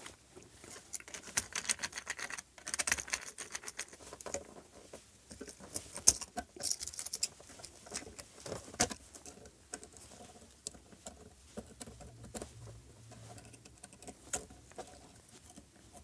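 Faint, irregular small clicks and scratching of needle-nose pliers and fingers working the copper wires loose from an old toggle switch's screw terminals.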